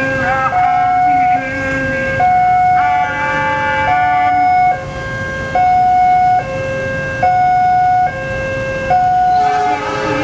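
Indonesian railroad crossing warning alarm sounding its two-tone electronic signal, a higher and a lower tone taking turns about every second without a break. The alarm signals that the barrier is down and a train is approaching.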